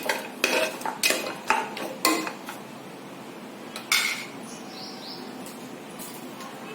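Metal spoon stirring in a metal cooking pot, knocking and scraping against the side in a quick run of clinks for about two seconds, then one more knock about four seconds in. The salt and turmeric are being mixed into the mutton and spices.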